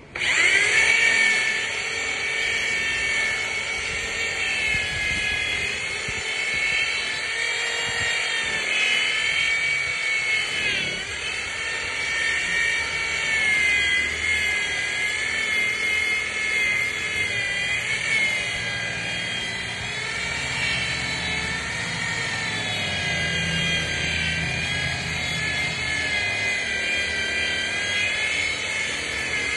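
Electric rotary polisher switching on suddenly and running steadily as it buffs a boat's fiberglass hull: a high motor whine whose pitch wavers and dips as the pad works the hull.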